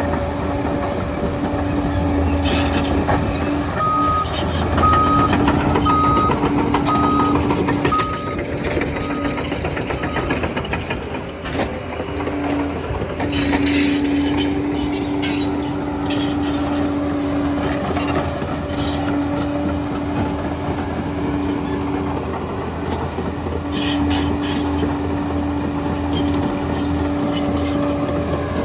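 Liebherr PR 746 crawler dozer working: its diesel engine drones steadily under load, with scattered clanks from the tracks and blade. From about four seconds in, a reversing alarm beeps about once a second for several seconds.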